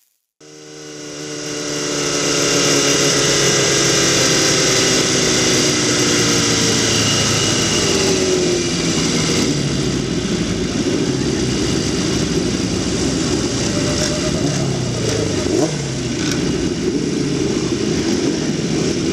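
Grid of classic racing motorcycles idling and being revved, led by the onboard Harris Yamaha's own engine. The sound fades in about half a second in. Now and then an engine revs up and falls back.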